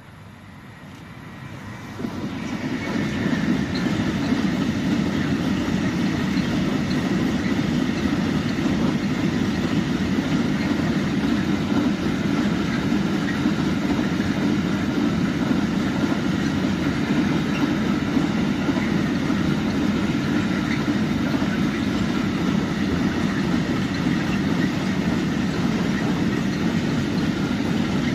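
A freight train hauled by an E6ACTab electric locomotive passes close by. The sound swells over the first few seconds as the train arrives, jumping about two seconds in. After that come the steady rolling rumble of a long string of open freight wagons on the rails and faint high steady tones above it.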